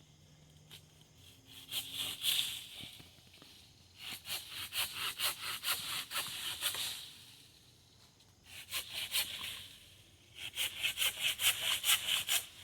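Hand saw cutting through wood in bursts of quick back-and-forth strokes, with short pauses between the bursts.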